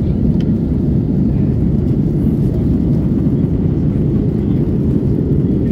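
Steady low rumble of an Airbus A320 airliner cabin in flight, the airflow and jet engine noise heard from inside the cabin during the descent.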